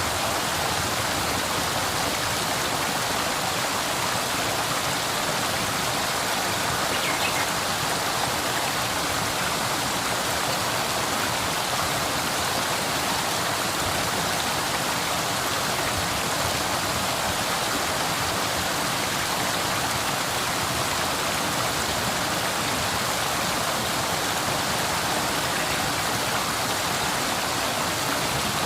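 River water flowing over rocks, a steady rushing and babbling with no change in level.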